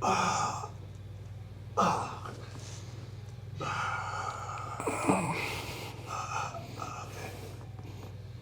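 A person breathing out heavily about four times, with a short falling vocal sound about five seconds in, over a steady low hum.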